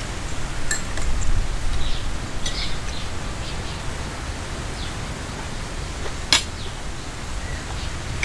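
Outdoor ambience of a meal: a steady low wind rumble on the microphone with faint, scattered bird chirps, and one sharp clink of cutlery on a dish about six seconds in.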